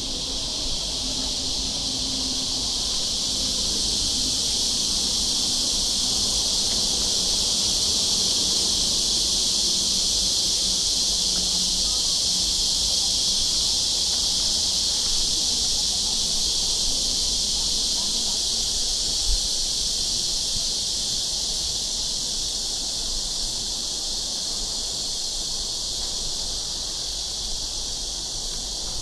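A chorus of cicadas singing loudly and steadily, a continuous high buzzing that swells over the first few seconds and holds.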